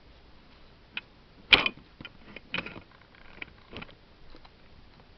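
FED rangefinder camera's cloth focal-plane shutter being fired and re-cocked during a post-repair check at 1/500 s: a sharp shutter click about one and a half seconds in, followed by several softer mechanical clicks.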